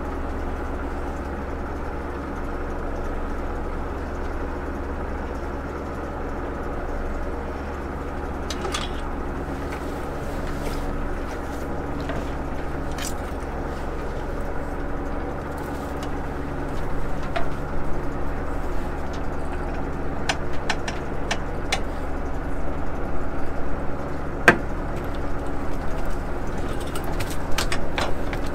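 Fishing boat's engine running steadily. From about halfway on, a scatter of sharp clicks and clanks from gear on deck comes in over it.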